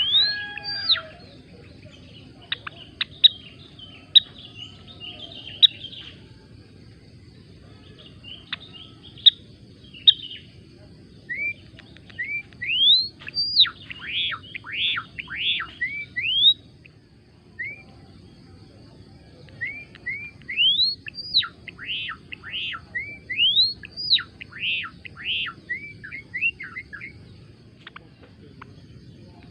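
A gelatik belong songbird chirping and singing in runs of quick, high, upward-sweeping notes, with two longer, denser bursts in the middle and toward the end.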